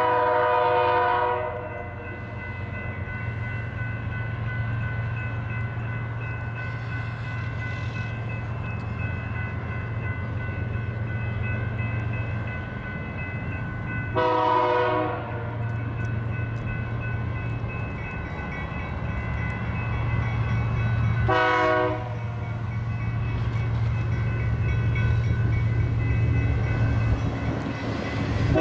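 Approaching BNSF diesel freight locomotive sounding its horn in the grade-crossing pattern: a long blast at the start, another about halfway through, a short one about three-quarters through, and the last long blast beginning at the end. Under it runs the low steady rumble of the locomotive engines, with a crossing bell ringing steadily.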